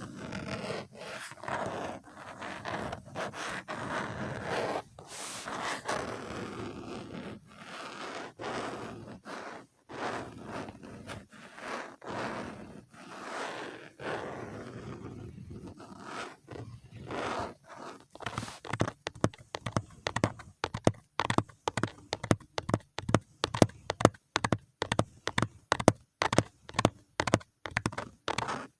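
ASMR brushing strokes, rhythmic and about one a second. About two-thirds of the way in they give way to quick tapping, several crisp taps a second.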